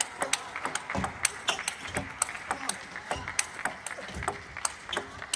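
Table tennis rally: the ball clicking sharply off paddles and table in a quick back-and-forth rhythm, a few hits a second.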